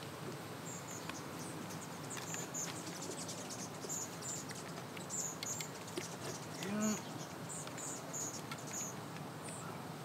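Honeybees humming low and steady around comb being broken and handled, with faint clicks and crackles. Short high chirps recur irregularly throughout.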